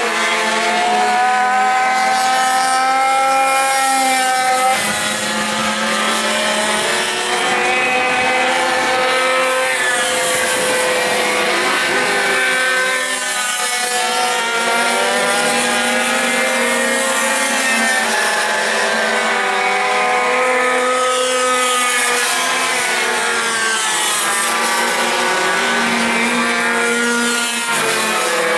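Several pocket bike engines racing at once, their high-pitched whines overlapping and rising and falling in pitch as the riders accelerate and back off through the corners.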